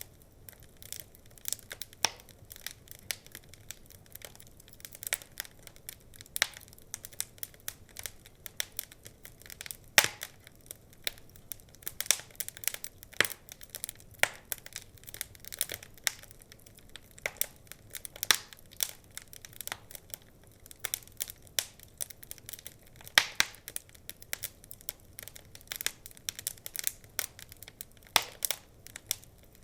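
Wood fire crackling in a fireplace: irregular sharp pops and snaps, several a second, over a faint low hiss, with a few louder pops.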